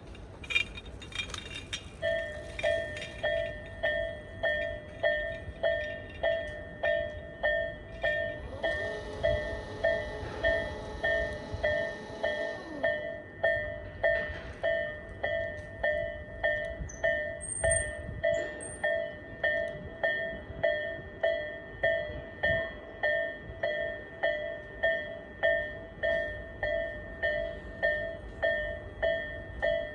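Japanese railway level-crossing alarm, the electronic warning bell typical of Tobu Railway, striking evenly about three times every two seconds from about two seconds in. Between about 9 and 13 seconds a broader rushing noise with tones falling in pitch runs under the bell.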